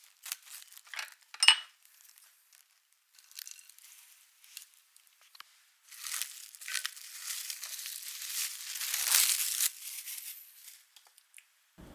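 Plastic wrap crinkling and being pulled and torn, with a few light clicks at first; the crinkling swells in the second half and then dies away.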